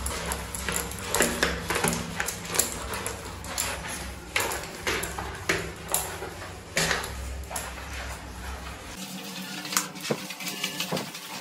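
Water splashed onto wet bathroom wall tiles to rinse them, heard as a string of separate splashes and spatters.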